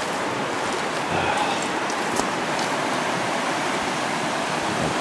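River water flowing steadily over and around rocks at the shoreline, a constant rushing noise.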